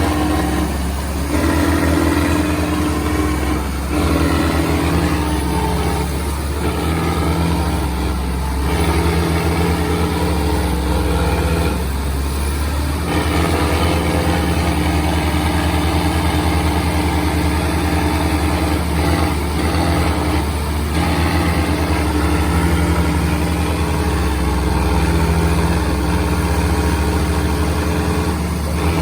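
Sonalika and Indo Farm tractors' diesel engines running hard under load in a tractor tug-of-war pull, a steady deep throb whose note dips and recovers several times.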